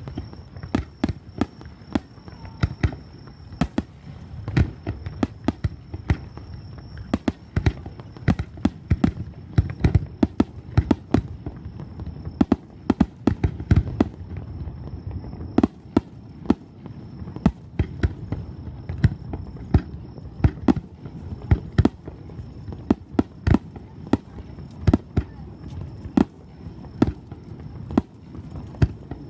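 Fireworks display with shells bursting in quick succession: a dense, unbroken run of sharp bangs and booms, several a second.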